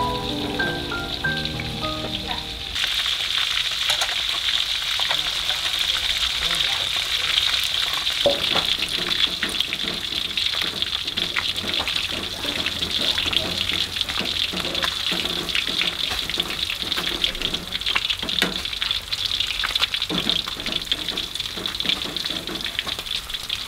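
Briefly music, then food frying in hot oil: a steady sizzle full of small crackles and pops, with light clicks of chopsticks stirring in a metal pan.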